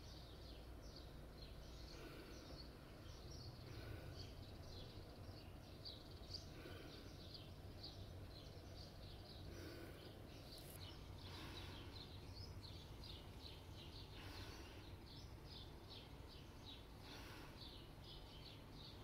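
Near silence: a faint low hum with many quick, faint high chirps, several a second, like small birds chirping.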